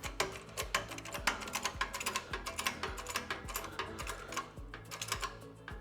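Background music with a steady beat, with fast, dense clicking over it.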